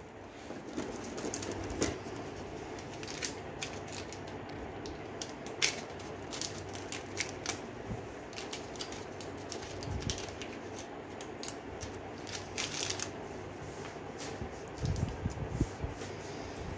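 Scattered clicks and taps of plastic rapid-test cassettes, sample tubes and packaging being handled and set down on a bench, over a steady low hum, with a quick run of knocks near the end.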